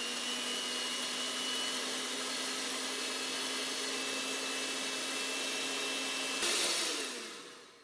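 Electric hand mixer running steadily, its twin beaters whipping egg whites and sugar to a foam in a glass bowl. About six and a half seconds in it is switched off and winds down, its whine falling in pitch.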